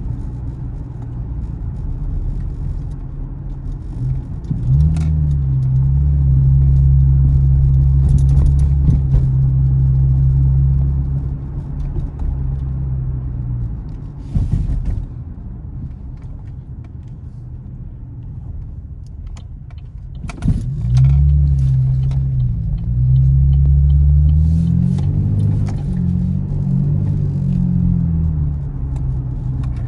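500-horsepower Chevrolet Camaro engine and exhaust while driving: a low, steady rumble that twice swells into a louder deep drone lasting several seconds, about a sixth and two-thirds of the way through, with the pitch stepping about during the second one.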